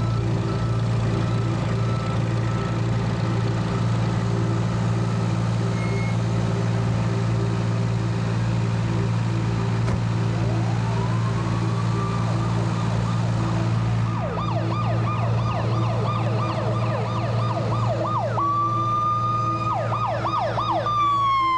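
Ambulance's electronic siren: it winds up into a wail about halfway through, switches to a fast yelp, and starts to fall away at the very end, over a steady low engine drone.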